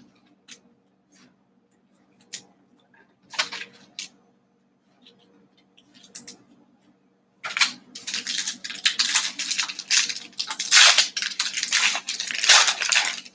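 Trading cards handled with a few light clicks, then from about seven seconds in the foil wrapper of a 2020 Select football card pack crinkling loudly as it is torn open.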